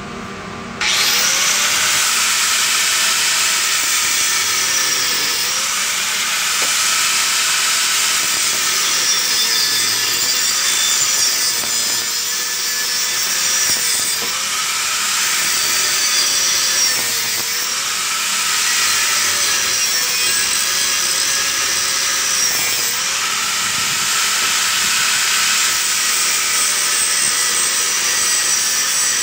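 Handheld angle grinder with a cut-off disc cutting through a painted steel pipe: a loud, steady grinding that starts suddenly about a second in, its motor note dipping and recovering every few seconds as the disc bites into the metal.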